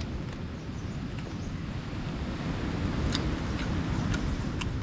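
Wind rumbling on the microphone over the wash of surf, with a few faint clicks in the second half.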